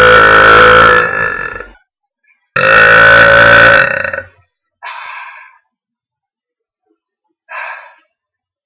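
A girl's loud, piercing burps: one long belch that ends a little under two seconds in, and a second long one starting about two and a half seconds in. Two short, quieter sounds follow, about five seconds in and near the end.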